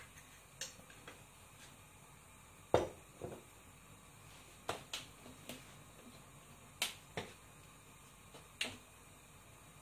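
A series of sharp clicks over a faint steady hiss, mostly in pairs about half a second apart, coming roughly every two seconds; the loudest is about three seconds in.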